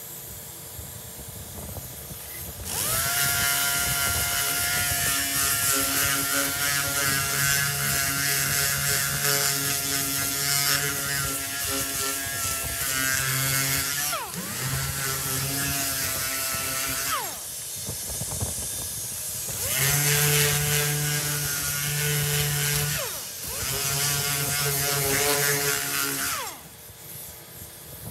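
Small handheld power sander with a round abrasive pad sanding the welded steel repair panel of a 1965 VW Beetle body. It runs four times, winding up to a steady whine at each start and spinning down at each stop, with a hiss of abrasive on the metal while it runs.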